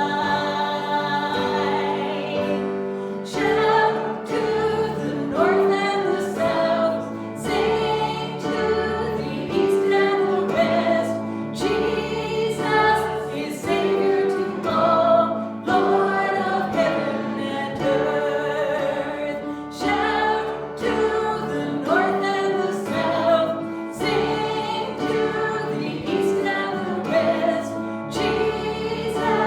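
Gospel hymn sung by a group of voices with instrumental accompaniment: a steady bass line under sustained sung notes, with a regular beat.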